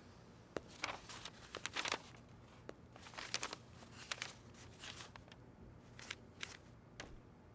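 Faint crinkling and rustling handling noises with scattered sharp clicks, something being handled at close range.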